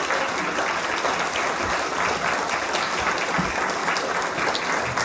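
A large audience applauding steadily at the close of an orchestral performance.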